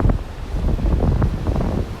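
Wind buffeting the microphone in uneven gusts, a loud low rumble.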